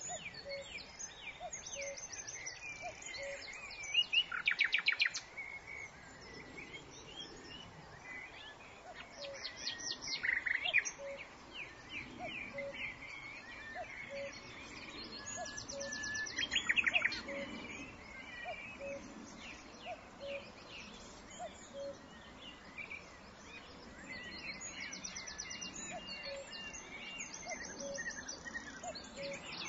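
Small birds chirping and calling, with several loud, rapid chirping trills about four, ten and seventeen seconds in.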